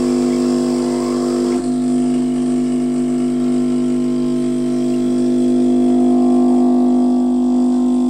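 Electric pump-driven espresso machine running with a steady, even hum, with a brief dip about one and a half seconds in.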